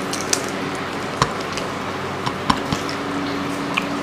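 Two people eating rice and prawn curry with their hands: scattered sharp smacks and clicks of chewing and of fingers working the food, the loudest a little after a second in and at about two and a half seconds, over a steady background hiss.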